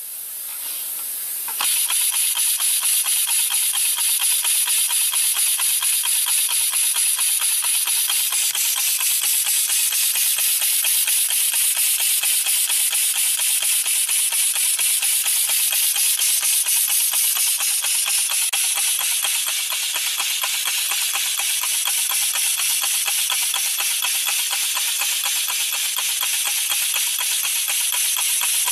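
Single-cylinder compressed-air engine running, its air exhaust hissing in quick, even puffs. It comes on abruptly about a second and a half in.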